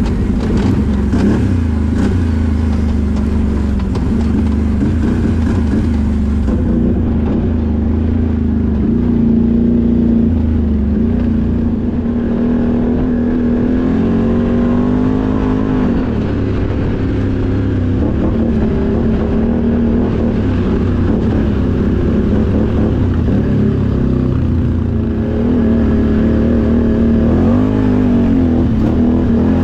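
Can-Am Outlander XMR 1000R ATV's Rotax V-twin engine running under way. Its pitch rises and falls with the throttle several times, most plainly around the middle and again near the end.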